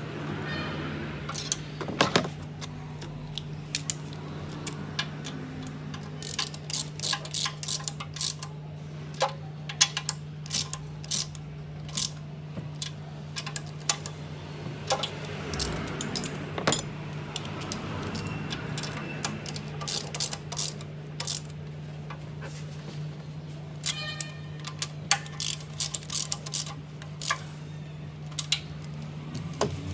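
Irregular metallic clicks and clinks, coming in clusters, like hand tools being handled against metal parts, over a steady low hum.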